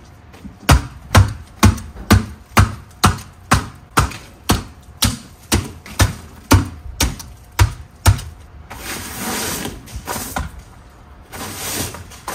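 A steady series of sharp knocks, about two a second, stopping about three quarters of the way through, then a few seconds of hiss.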